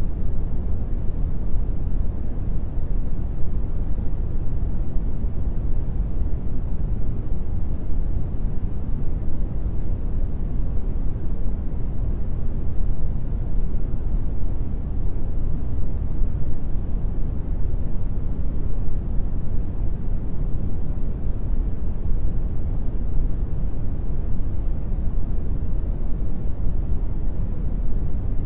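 Steady brown noise: an even, deep hiss strongest in the low end and fading toward the highs, unchanging throughout.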